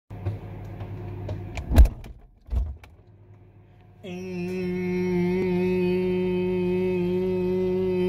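A man imitating a running microwave with his voice: one long, steady droning note that starts about four seconds in and is held without change. Before it come a low hum with scattered clicks and a loud knock near two seconds in, from the phone and fridge being handled.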